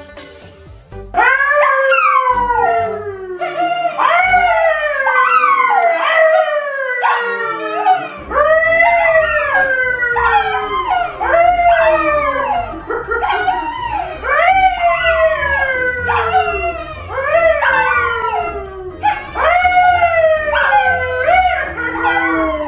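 A yellow Labrador-type dog and a brown poodle howling together with a man howling along, starting about a second in: a run of long, overlapping howls, each rising quickly and then falling in pitch.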